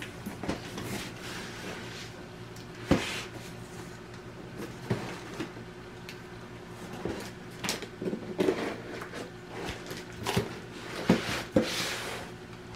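Scattered knocks and clicks of objects being handled and set down, about a dozen over several seconds, over a faint steady hum, with a short rustle near the end.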